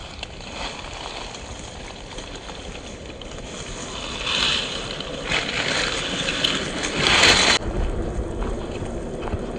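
Scale RC crawler (Axial SCX10 II chassis) driving off-road, its tyres churning over the ground in three louder bursts about four and a half, five and a half and seven seconds in, the last the loudest.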